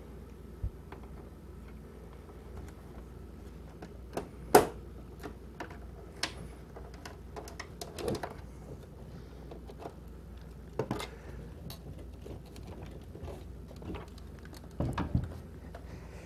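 Plastic projector housing being pried apart by hand: irregular clicks and snaps as the top cover's clips let go, with quieter rubbing and handling of the plastic between them. The sharpest snap comes about four and a half seconds in.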